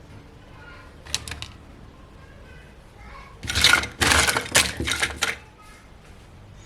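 Small plastic toy pieces and packaging being handled: a few light clicks about a second in, then a louder flurry of clicking and rustling for nearly two seconds.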